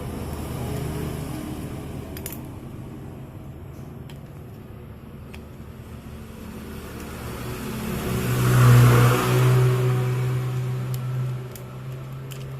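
A steady low hum, with a motor vehicle's engine swelling to its loudest about nine seconds in and fading again, as a vehicle passing by does. A few faint clicks.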